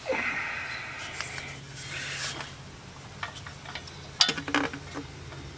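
Light metal clicks and rubbing of a wrench being worked on an exhaust oxygen sensor in a tight space, with scattered clicks and one sharper click about four seconds in, over a faint steady low hum.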